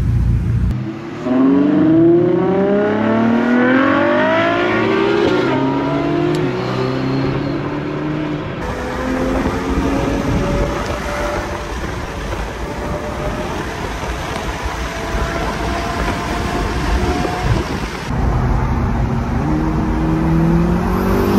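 Ferrari supercar engines accelerating, climbing in pitch in repeated sweeps. In the middle stretch the 812 GTS's naturally aspirated V12 is heard from its open cockpit, pulling steadily higher, and a last sharp climb comes near the end.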